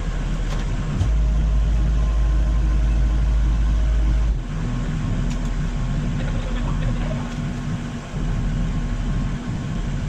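Heavy equipment engine running steadily, with a deeper, louder rumble for about three seconds starting a second in.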